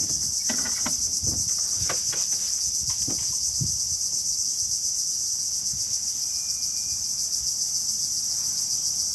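A loud, steady, high-pitched chorus of insects, buzzing with a fast, even pulse. A few soft knocks and rustles sound in the first few seconds.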